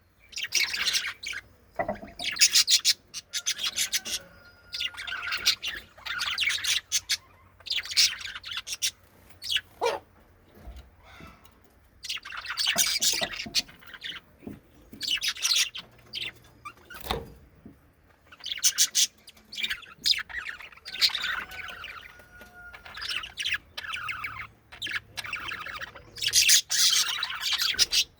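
Pet budgies (budgerigars) chattering and chirping in repeated bursts with short pauses, plus a few sharp clicks in between.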